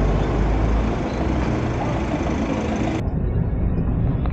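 Steady rumble and noise of a road or rail vehicle in motion. The sound turns abruptly duller about three seconds in.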